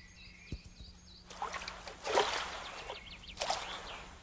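A red deer running through shallow water, splashing in a burst of about a second and a half that is loudest about two seconds in, then a shorter splash near the end. Faint bird chirps at the start.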